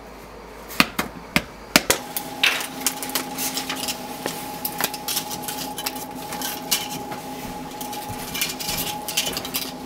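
Clicks and taps of a metal tool prying at a mobile phone's casing and parts on a hard tabletop, irregular and scattered throughout. A steady low hum starts about two seconds in.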